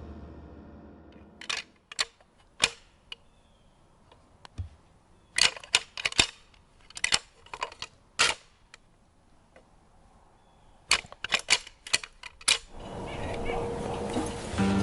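Pair of deer antlers rattled together as a bowhunter's call, imitating two bucks fighting: four bursts of sharp clacking with short pauses between them.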